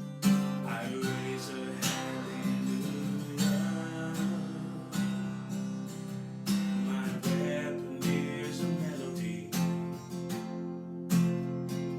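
Acoustic guitar strummed chords in a steady rhythm, with accented strokes about every one and a half seconds.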